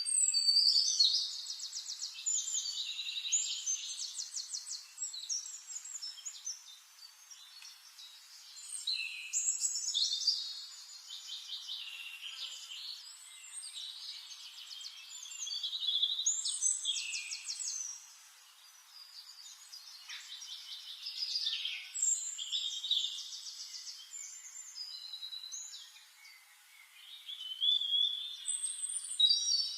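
Forest songbirds singing: long, varied high song phrases with fast trills, a loud phrase every six seconds or so, with softer calls in between.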